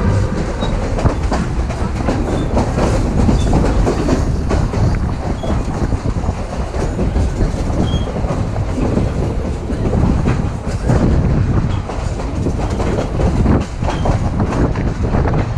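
Durango & Silverton narrow-gauge train running along the track: a steady rumble with the wheels clattering over the rail joints and faint short squeaks now and then.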